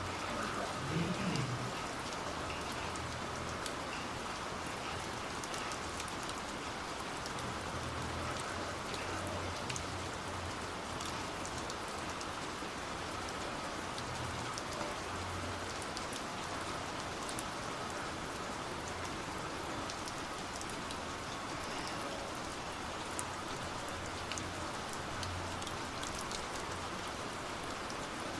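Steady, even rain-like hiss with scattered faint ticks, and a few soft, dull low thuds now and then.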